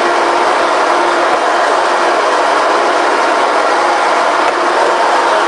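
Sound-insulation plate punching machine running: a loud, steady mechanical noise with a faint steady hum in it, and no separate strikes.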